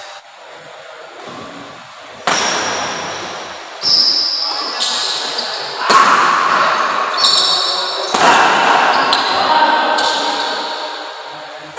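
Badminton rally: rackets striking the shuttlecock in a series of sharp hits, roughly every one to two seconds from about two seconds in. Each hit echoes in the large hall.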